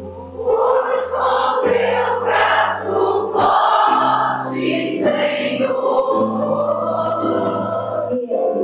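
Voices singing a worship song over long held bass notes that change every second or two.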